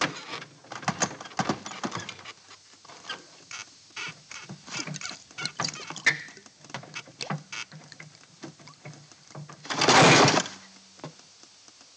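Broken glass crunching and metal creaking as a man clambers over a crashed, overturned car: a long run of irregular cracks, clicks and crackles, with one much louder grinding scrape about ten seconds in.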